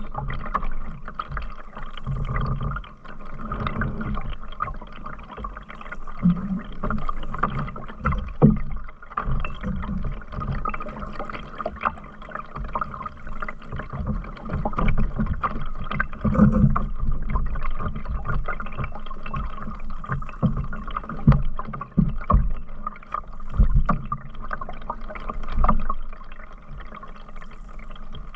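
Canoe being paddled: water splashing and gurgling against the paddle and hull, with uneven low knocks and thumps.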